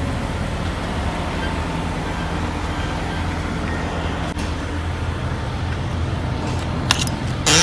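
Diesel engine idling with a steady low hum beside a semi-trailer, with a short, loud burst of noise near the end.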